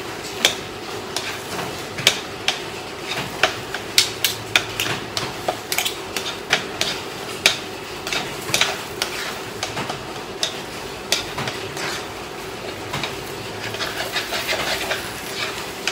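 Kitchen utensil knocking and scraping in a dish while mashed potatoes are stirred and mixed with cheese: irregular clinks and knocks, several a second, over a steady hum.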